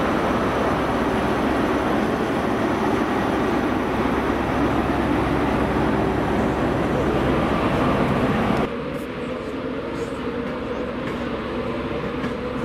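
Class 43 HST power car's MTU diesel engine running steadily as the power car moves slowly past. About two-thirds of the way through the sound cuts off suddenly to quieter station background beside a standing electric train, with a few light clicks.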